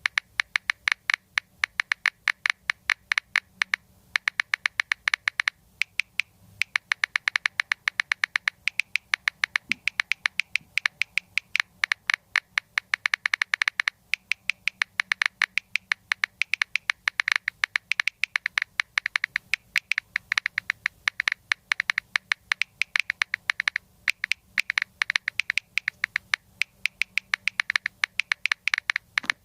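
Samsung Galaxy A7 (2018) on-screen keyboard's key-press click sounds during fast typing: rapid, sharp clicks, several a second, broken by a few short pauses.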